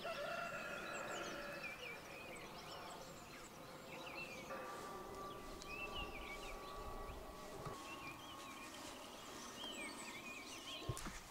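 Wild birds chirping and singing in the background, many short quick calls. A faint steady hum runs under them through the middle, and there is a single knock near the end.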